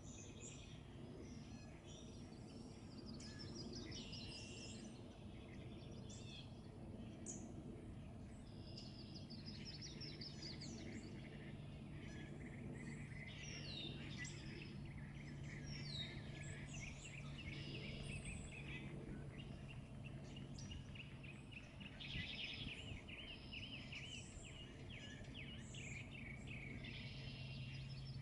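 Several small songbirds singing and chirping, with short trills and rising notes, over a low rumbling background noise. A steady low hum sets in about nine seconds in.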